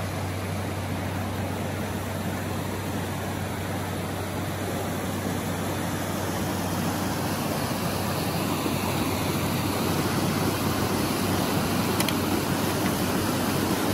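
Rushing whitewater of river rapids and a small falls, a steady roar that grows somewhat louder about halfway through.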